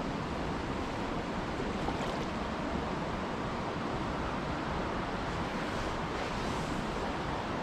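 Steady rush of a river running high after heavy rain.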